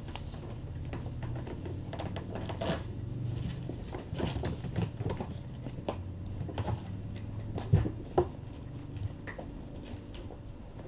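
Kittens scampering and wrestling on a fleece bed and knocking a felt basket about: irregular soft patters, rustles and small knocks, with two louder knocks about eight seconds in.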